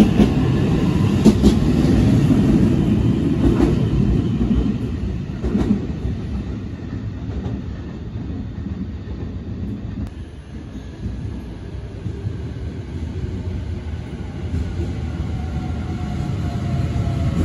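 E531-series electric commuter train running along the platform, its wheels clacking over rail joints, with a low rumble that fades away over several seconds. Near the end another electric train approaches, its motor whine growing.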